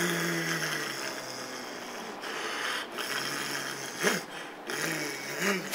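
A man's voice making long, low growling sounds, held for a second or so at a time with short breaks, then two sharper, louder outbursts about four seconds in and at the very end.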